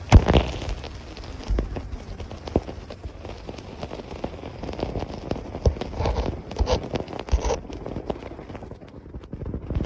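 Camera microphone dunked in shallow river water. Muffled water sloshing with irregular knocks and thumps, the loudest thump right at the start.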